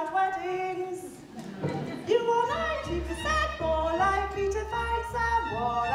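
A woman singing a sung line in English, opera style, with instrumental accompaniment. A pulsing low bass line comes in about two and a half seconds in.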